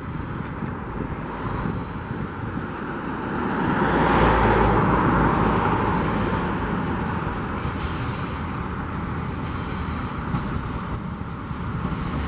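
Two Tasrail TR-class diesel-electric locomotives, TR10 and TR13, running as they haul a container train towards the listener: a steady engine rumble that swells about four seconds in.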